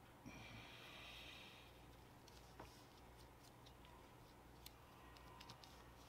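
Near silence: low room hum, with a brief soft hiss near the start and a few faint light ticks.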